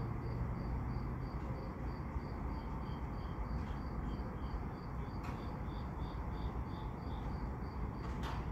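Crickets chirping in a fast, even pulse, about four chirps a second, with a second cricket chirping at a lower pitch on and off, over a low steady rumble. A short click comes about five seconds in and another near the end.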